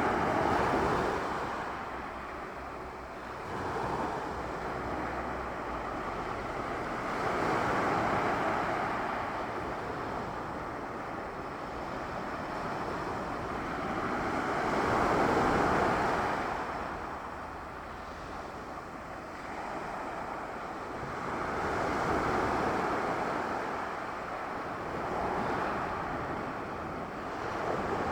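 Sea waves washing onto the shore in slow surges, each one swelling and fading every few seconds, the loudest about halfway through: a leftover swell after the wind has dropped.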